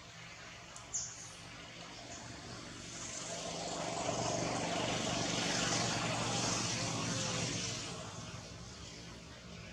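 A sharp click about a second in, then a distant engine passing by: a steady hum that swells over a few seconds and fades away again, dropping slightly in pitch as it goes.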